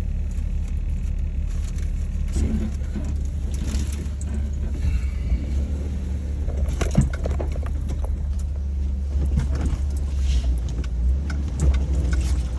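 Jeep driving slowly over an off-road trail: a steady low engine and drivetrain rumble, with scattered knocks and rattles from the body and loose gear, one sharper knock about seven seconds in.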